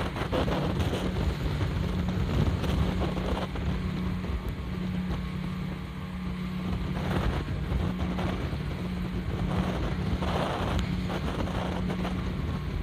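Engine of an inflatable speedboat running at a steady pitch while under way, with wind buffeting the microphone and water rushing and splashing along the hull in several louder swells.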